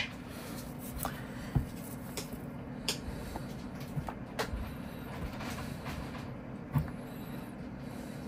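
Gloved hands handling and pressing a packed clump of fermented-sawdust beetle rearing mat over a plastic tray: scattered soft scrapes and small taps, the sharpest about one and a half seconds in and near the end. A steady low hum runs underneath.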